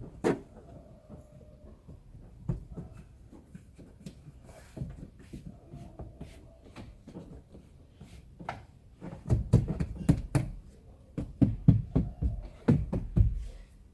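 Hands pressing and tapping a rubber door seal onto the car's door-frame flange: scattered knocks and soft thumps, coming in quick clusters in the second half.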